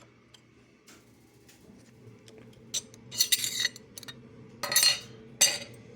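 Metal clicks and clinks from parts of a Pfaff 1245 sewing machine being handled: a few light ticks at first, then several brief, louder clattering bursts in the second half.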